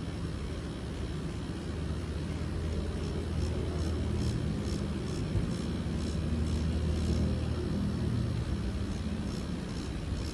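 Permanent-makeup tattoo machine running with a steady low hum as eyebrow hair strokes are tattooed.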